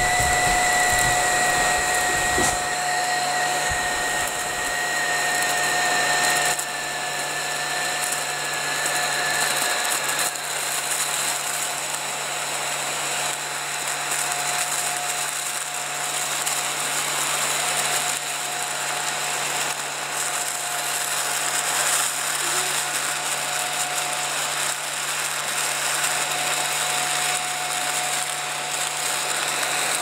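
Mini ladybird desktop vacuum cleaner's small electric motor running steadily with a whine. A higher whistle drifts slightly lower and stops about ten seconds in.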